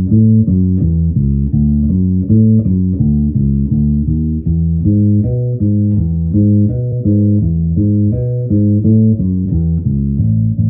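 Electric bass with flatwound strings playing a lick of quick single notes through the bridge pickup alone, tone rolled back to about half, giving a dark, rounded sound.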